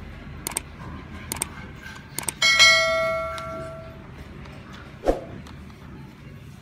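Subscribe-button animation sound effect: a few quick clicks, then a bell ding that rings out and fades over about a second and a half. A dull thump follows about five seconds in.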